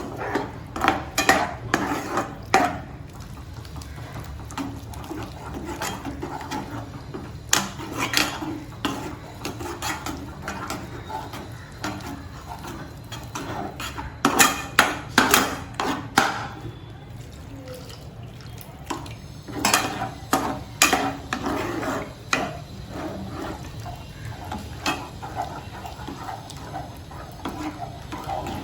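A metal ladle scraping and knocking against a cooking pan in several bursts of quick strokes, separated by quieter stretches. It is stirring milk into a butter-and-flour roux, working out lumps as a white sauce forms. A steady low hum runs underneath.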